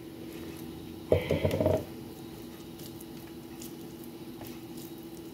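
Hands rolling a ball of stuffing mix between the palms: faint soft squishing and light ticks, over a steady low hum. About a second in, a short burst of voice.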